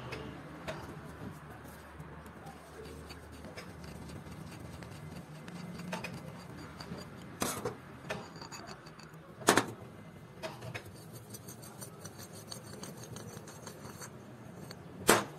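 Rusty steel car-jack parts handled by gloved hands: a threaded screw and tube rubbing and scraping, with three sharp metal clinks, about halfway through, again two seconds later, and near the end.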